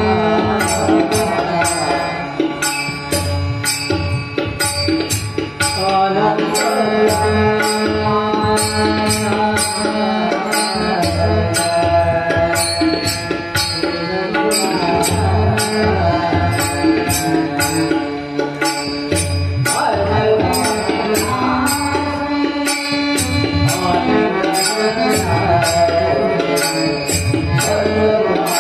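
Marathi devotional bhajan: a singer's chant-like melody over drum strokes, with small hand cymbals clashing in a steady repeating rhythm.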